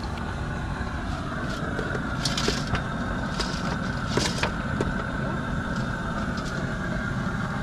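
Steady low roar of an outdoor propane fryer burner, with a few brief crackles about two to four seconds in.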